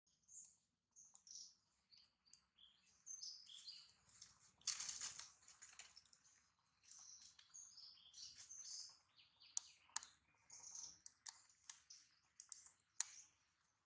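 Faint, short, irregular high chirps of small birds calling, with a few sharp clicks and a brief rustle about five seconds in.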